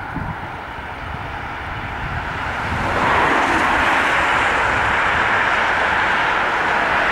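Road traffic: a steady tyre and engine noise that swells about two seconds in as a vehicle comes closer, then stays loud.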